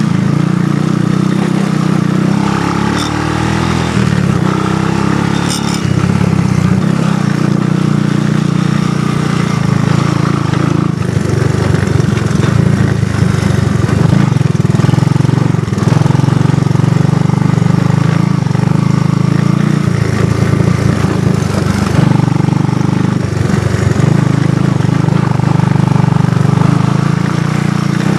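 ATV engine running steadily and loud, close to the microphone, with small shifts in engine speed.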